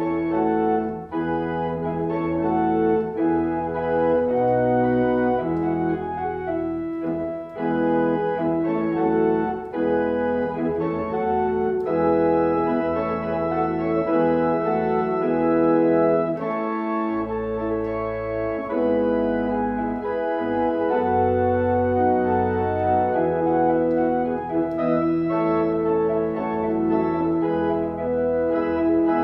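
Electronic church organ with two manuals playing slow music in sustained, held chords that change about every second, with deep pedal bass notes coming in for a few seconds past the middle.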